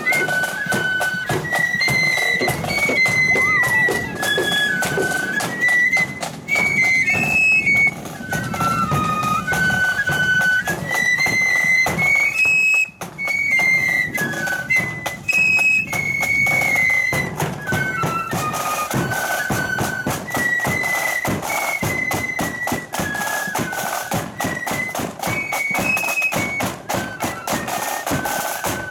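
Marching flute band playing a tune together on flutes, with snare and bass drum beating time under the melody.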